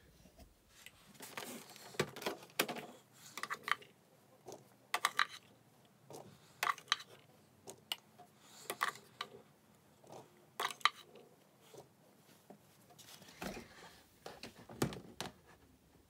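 Irregular plastic clicks, knocks and rattles from handling a Casdon Washmatic toy washing machine as its door is opened and the machine is tipped forward.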